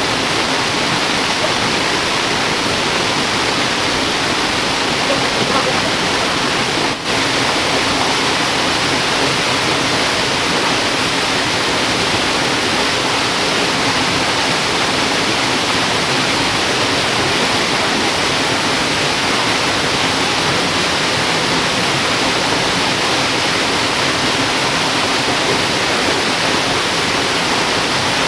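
Steady rush of flowing stream water tumbling over rocks.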